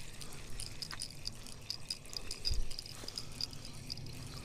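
Spinning reel being cranked to bring in a hooked fish: a low whirr with rod-handling noise, under faint high ticking from insects.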